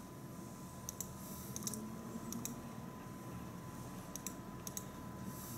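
Quiet, scattered clicks of a computer keyboard and mouse, about eight in all, over a faint steady high-pitched tone.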